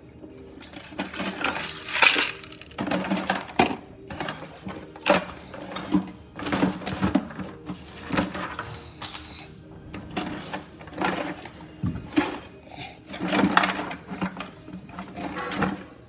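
Handling noise from hand work on a dishwasher's electrical hookup: irregular rustles, clicks and knocks as wires and parts are handled at the junction box.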